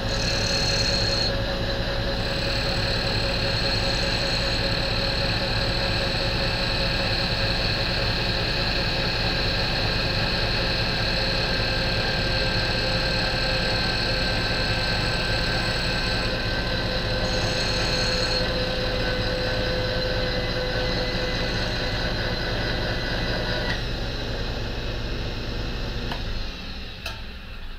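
RF-31 mill/drill's motor and gear head running steadily, with a steady whine, while the end mill takes a light final finishing pass along the bracket. The sound dies away near the end as the machine is switched off.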